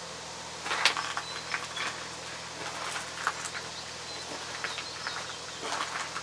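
Close handling noises as a slingshot is readied for shooting: a string of short clicks and rustles, the sharpest about a second in. Birds chirp faintly in the background.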